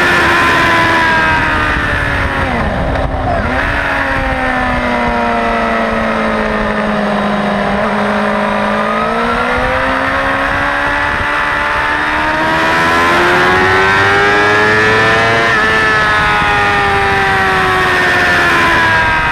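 Suzuki GSX-R600 inline-four sportbike engine heard from on board under wind rush: high revs drop about three seconds in with quick throttle blips as it shifts down for a corner, sag slowly to a low point, then climb steadily for several seconds as the bike accelerates out, and ease off near the end.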